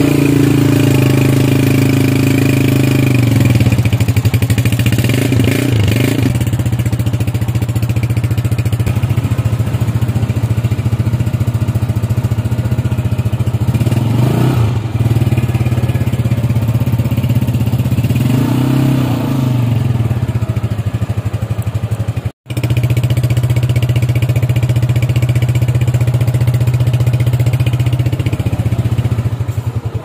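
Super Star Deluxe 125 motorcycle's 125cc single-cylinder engine idling steadily, with the throttle blipped three times, each a short rise and fall in revs. Near the end the engine is switched off with the key and dies away.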